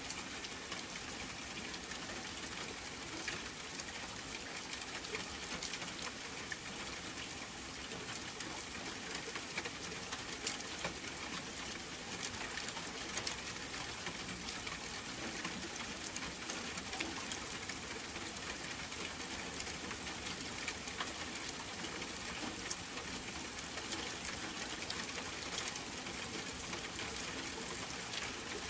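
Steady rain falling: a dense, even hiss with many sharp individual drop ticks scattered through it.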